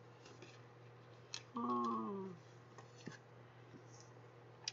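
Faint clicks and rustles of card and paper being handled, with one short wordless 'mm' from a woman's voice about a second and a half in, falling in pitch.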